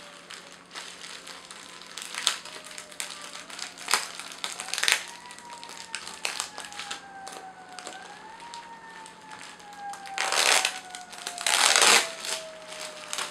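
Plastic bubble wrap crinkling and crackling as it is handled and unwrapped by hand from a telescope tube. It comes in several short bursts, with the loudest and longest crinkling near the end.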